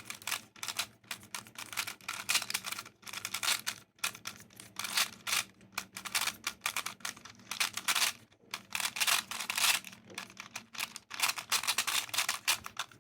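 GAN 356i smart 3x3 speed cube being turned fast through a full solve: a dense, uneven stream of plastic layer-turning clicks, with brief pauses about four and eight seconds in.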